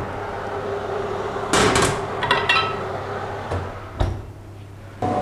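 A built-in oven is opened and a metal frying pan is set on its rack, with a clatter and a few ringing metallic clinks about halfway through. The oven door is then shut with a knock and a sharp clack about four seconds in.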